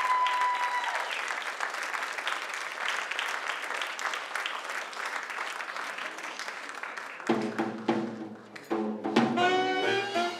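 Audience applause as the cast's final held sung note ends about a second in. About seven seconds in, brass-led jazzy band music starts.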